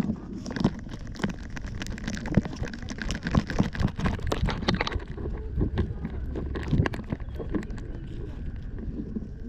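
Handling noise from a 360° camera strapped to a Yorkshire terrier's harness: rustling and many small knocks as the dog noses about in the grass, with wind rumbling on the microphone.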